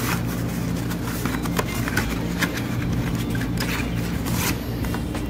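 Printed card stock being pressed and squeezed by hand to set glued seams: short paper rustles and taps, over steady background music.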